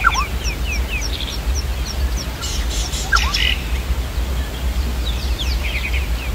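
Several birds calling: a rapid series of short high chirps, about three a second, over the first two seconds, bursts of twittering, and a couple of lower falling whistles, over a steady low rumble.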